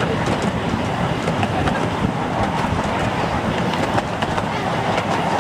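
Miniature railway train running along its track, a steady rumble from the wheels with scattered clicks as they pass over the rail joints.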